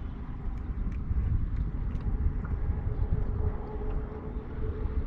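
Low rumble of wind buffeting the microphone, with a few faint clicks of handling, and a steady hum that comes in about three and a half seconds in.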